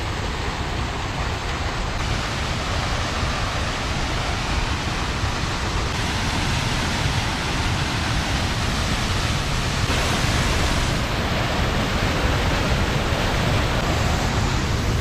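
Rifle Falls, a multi-stranded waterfall, rushing steadily: an even, unbroken roar of falling water.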